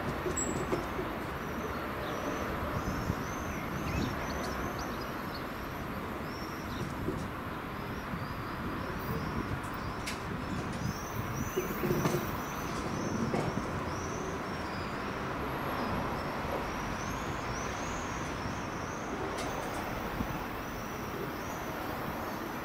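Distant electric-locomotive-hauled train running on the line, a steady rumble, with small birds chirping again and again throughout.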